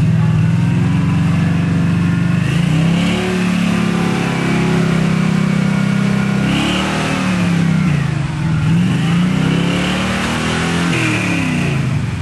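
Truck engine revving hard: it holds a steady high pitch for the first few seconds, then climbs and drops several times as the throttle is worked.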